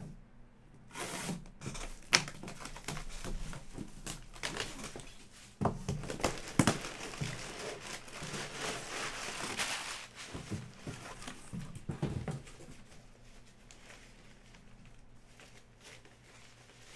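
Cardboard box being opened and brown packing paper crumpling and rustling as a hand digs through it, with knocks and scrapes of handling. About twelve seconds in the rustling dies down to soft handling of a cloth drawstring bag.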